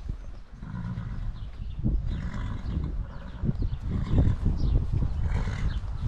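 A horse whinnying several times over a steady low rumble.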